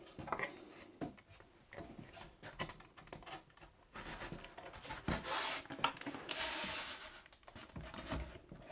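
Yellow plastic strip slid along the moulded groove of a Paradise Honey polystyrene beehive side panel: scattered light clicks and knocks of the parts being handled, then two longer rubbing scrapes about halfway through.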